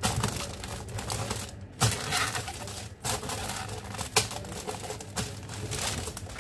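Clear cellophane wrap crinkling and crackling as hands gather and smooth it around a tray, with irregular sharp crackles and a few louder snaps.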